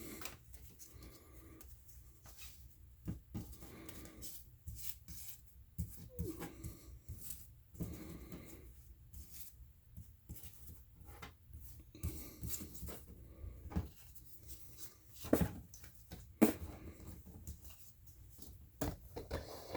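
Scattered light taps and rustles from a sticker pack and small items being handled, with two sharper knocks about fifteen and sixteen seconds in.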